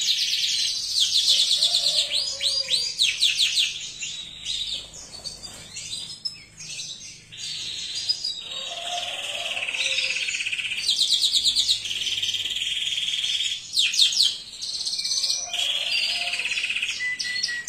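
Domestic canary singing a long, rapid song of fast high trills and rolls, with a few sweeping notes. The song goes quieter and sparser for a few seconds near the middle, then comes back at full strength.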